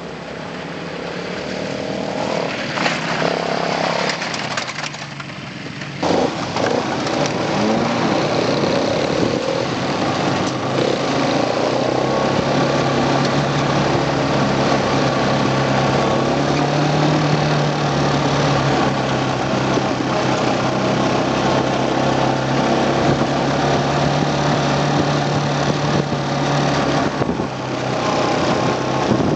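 Quad bike (ATV) engine. It grows louder as the quad comes up the track over the first few seconds, then from about six seconds in runs loud and steady close by.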